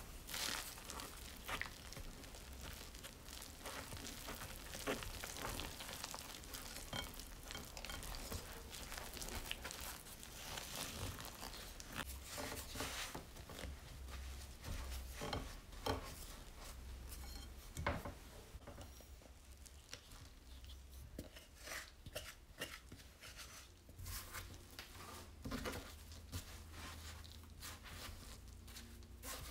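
Flour and milk being stirred and worked into a sticky dough in a glass bowl: soft crackling scrapes, squishes and small taps against the glass. Near the end the dough is kneaded by hand on a silicone mat.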